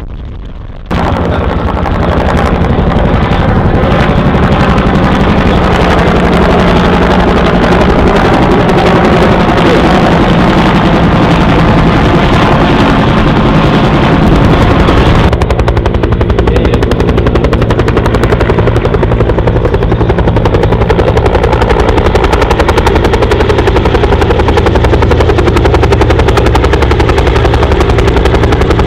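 Bell UH-1 Iroquois (Huey) helicopter flying, loud, with the rapid beating of its two-bladed main rotor over the engine's steady run. It starts abruptly about a second in.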